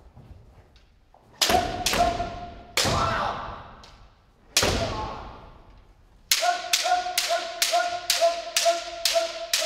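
Bamboo shinai cracking against kendo armour and the partner's shinai, each strike echoing in the hall, with shouted kiai. Four separate strikes come first; from about six seconds in, a fast run of about ten strikes, some three a second, goes on under one long held kiai, the pattern of kirikaeshi's alternating left-right head strikes.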